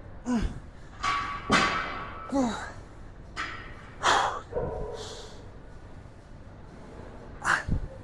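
A man grunting and breathing hard through heavy dumbbell curls, with his arms worn out near the end of the set. Short grunts falling in pitch come about three times in the first three seconds, then sharp breaths, and a dull thud near the end.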